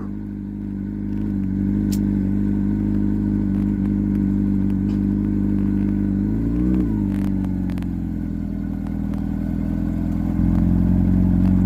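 A vehicle motor running steadily with an even hum. Just before seven seconds its pitch rises and falls back briefly, and it grows a little louder about ten seconds in.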